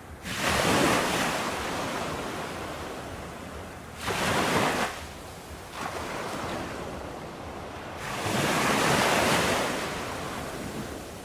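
Ocean waves breaking on a shore. Three surges of surf, about half a second in, around four seconds in and a longer one around eight seconds in, each washing out and fading into a steady hiss.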